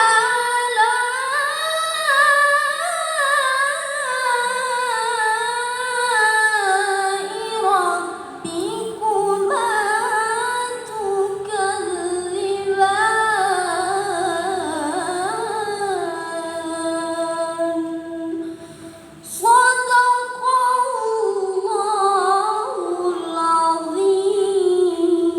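A high solo voice reciting the Quran in the melodic tajwid style, drawing out long ornamented notes that bend up and down. There is a brief pause for breath about three quarters of the way through, then it picks up again.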